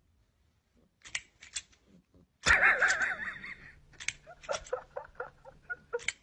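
Mechanical toy crocodile snapping its plastic jaws, a run of sharp clicks and clacks several a second. A loud short cry breaks in about two and a half seconds in.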